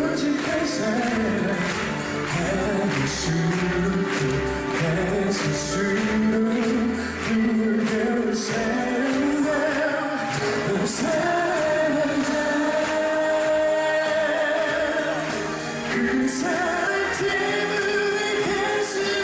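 Korean male pop singer singing a song live into a handheld microphone over band accompaniment, with cymbal hits through it.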